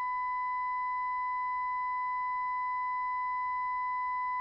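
Brüel & Kjær Type 4231 sound calibrator sounding its steady 1 kHz reference tone at 95.2 dB, with faint overtones, fitted to a head simulator's ear to calibrate the ear microphone's sensitivity.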